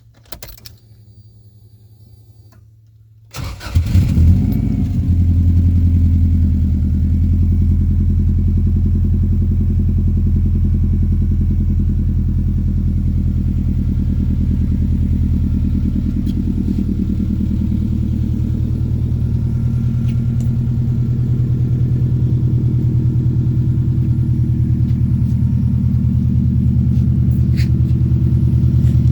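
Subaru WRX's flat-four engine cranking and starting a few seconds in, flaring briefly, then settling into a steady idle.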